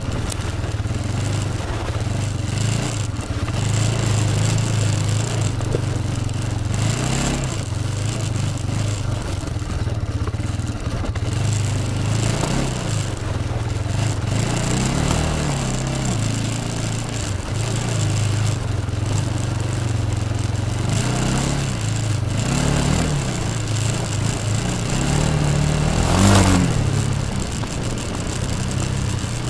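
Yamaha Bruin ATV's single-cylinder four-stroke engine running under way on a dirt trail, its pitch rising and falling with the throttle. Near the end comes one louder rev.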